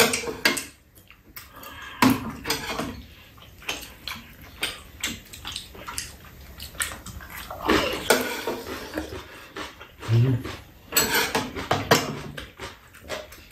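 Two people eating tteokbokki: chewing and slurping, with metal chopsticks and a spoon clicking against the bowls, and a few short murmurs now and then.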